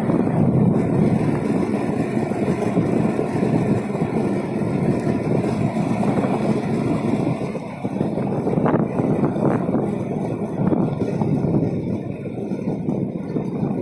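Steady, rough rumbling noise of travelling along a smooth asphalt path, the kind made by wheels rolling and wind on a moving microphone. It dips briefly about eight seconds in, and a few faint clicks follow.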